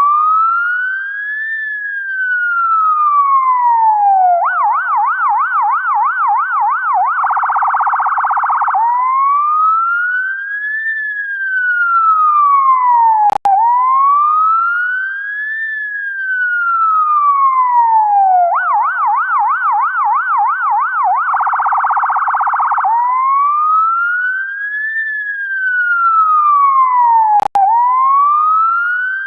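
UK ambulance electronic siren cycling through its tones: a slow rising and falling wail, then a fast yelp, then a rapid buzzing phaser, the pattern repeating about every 14 seconds. A brief click and dropout breaks it twice, about 14 seconds apart.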